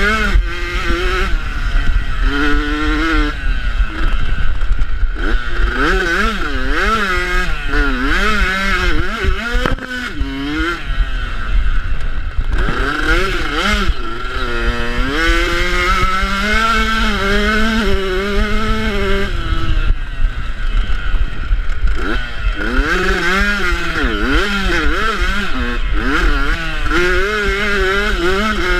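Motocross bike's engine under hard riding, revving up and dropping back again and again with each throttle and gear change, the pitch climbing and falling throughout.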